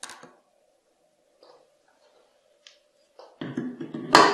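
Metal parts being handled: a light knock as the drilled metal block is picked up, a couple of small clicks, then a burst of metal scraping and clattering as it is fitted onto the metal toy truck, ending in one loud clunk near the end.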